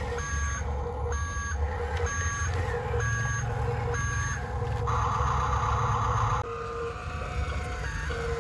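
Electronic reversing beeper from a radio-controlled truck's sound unit, beeping about once a second over a low engine rumble. A little past the middle the beeps give way for about a second and a half to a loud, steady hiss-like tone, and they resume near the end.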